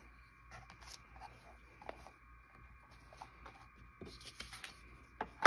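Faint scratchy rustling of paper scraps being handled and a glue stick rubbed over paper, with scattered light taps and one sharp click near the end.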